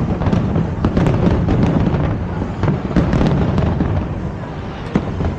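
Fireworks display: a rapid string of bangs and crackles from bursting aerial shells over a continuous low rumble, ending with a single sharp bang near the end.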